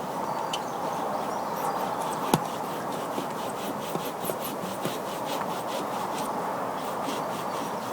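Hacksaw blade cutting through the hard cork core of a sliotar (hurling ball): a steady rasping, with a sharp click a little over two seconds in.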